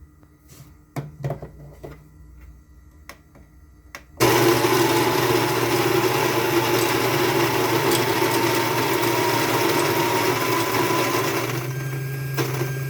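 A few light clicks, then about four seconds in a Baratza Vario coffee grinder starts suddenly and grinds a small dose of beans, with the beans popcorning on the burrs. It is a loud, steady whir with a thin whine on top. Near the end the beans run out and it runs empty with a lower, steadier hum.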